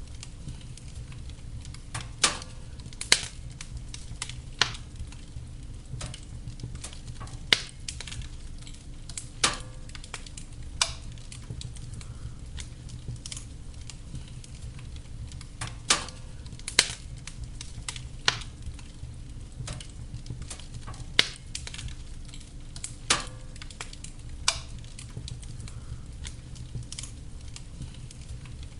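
Wood fire in a fireplace crackling, with about a dozen sharp, irregular pops and snaps over a steady low rumble.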